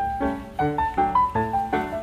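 Background piano music: a melody of single notes at an even pace, each struck and fading.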